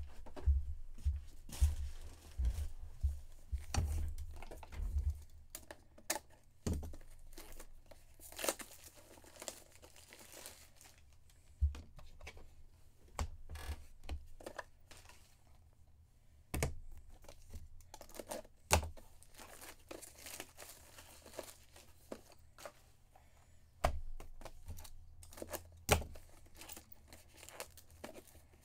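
Plastic packaging being handled, crinkling and tearing, with scattered sharp clicks. Dull knocks are crowded into the first few seconds.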